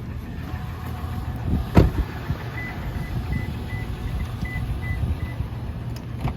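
A car door thumps about two seconds in. Then the Toyota 4Runner's warning chime sounds: about eight short high beeps at one pitch, just under three a second, over a low handling rumble.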